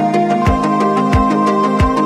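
Background music with a steady beat: a low drum hit about every two-thirds of a second under held synth-like tones.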